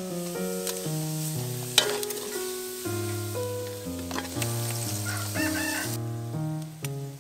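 Spice paste sizzling as it fries in oil in an aluminium pot, with a ladle clinking against the pot about two seconds in, under steady background music. A rooster crows once a little past the middle.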